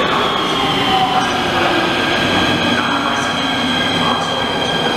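Nuremberg U-Bahn train pulling into an underground station platform: a steady running rumble and rush with a high whine that falls slowly in pitch.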